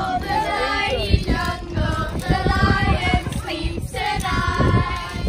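A group of young girls singing a song together, their voices a little ragged and uneven, with a low rumble underneath.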